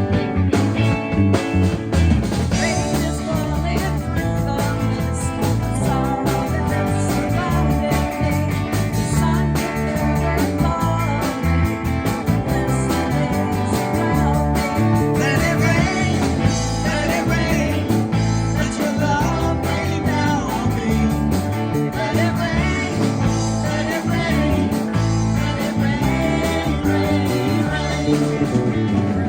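Guitar-led rock music with a steady beat, and a melody line wavering over it through the middle.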